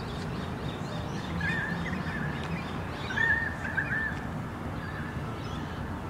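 Pied currawong calling: two phrases of wavering, warbling notes, about one and a half and three seconds in, with a fainter note near the end, over faint chirps of other birds and a low steady rumble.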